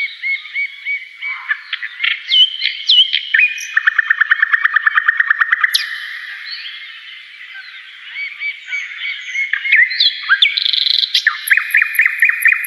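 Several songbirds singing and chirping at once, overlapping whistles and calls. A rapid trill of about eight notes a second comes a few seconds in, and faint high ticking calls come near the end.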